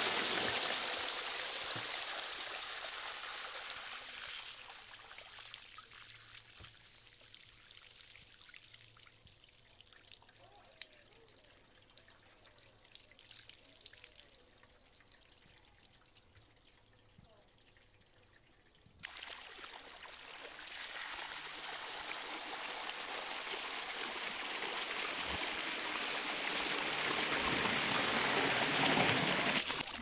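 Water gushing out through the open door of a front-loading washing machine filled to the brim and splashing onto stone steps, dying away to a trickle and a few drips. About two-thirds of the way through, a second full gush starts abruptly and grows louder toward the end.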